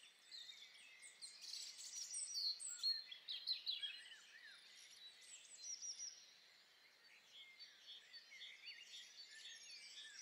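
Faint bird chirping: many short, quick up-and-down calls, busiest in the first few seconds.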